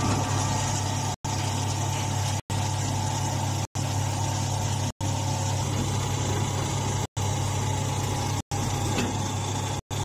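Hydraulic straw baler's power unit, motor and hydraulic pump, running with a steady drone. The sound drops out for short silent gaps every second or so.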